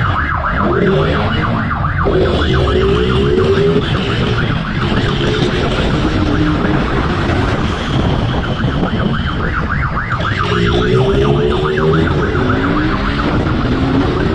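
Police motorcycle siren sounding a fast up-and-down yelp, about five cycles a second, over the motorcycle's engine revving up and easing off several times, with low wind and road rumble.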